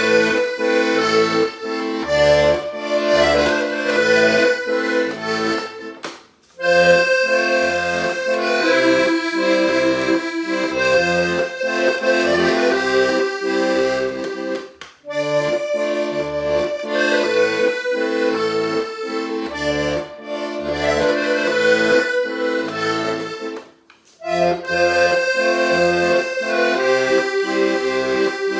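Hohner Corona III three-row diatonic button accordion playing a tune over a steady rhythmic bass, breaking off briefly three times between phrases.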